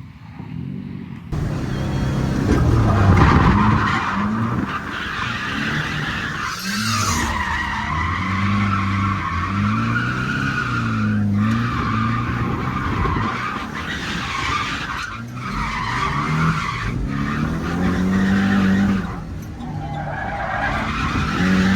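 Drift car engine revving hard, its pitch rising and falling again and again, with tyres squealing through long slides. It starts about a second in.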